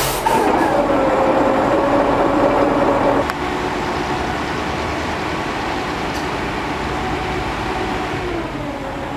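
The engine of a piece of heavy construction machinery, just started, runs loudly with a steady drone. About three seconds in it drops to a lower, steady running level.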